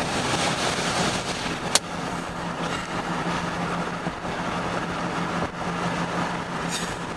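Steady road noise heard from inside a moving storm-chase vehicle: tyre and air noise over a low, even engine hum, with one sharp click about two seconds in.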